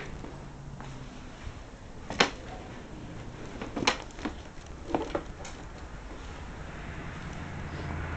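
A few sharp knocks and clicks, about five spread over several seconds with the loudest early, over a low rumble.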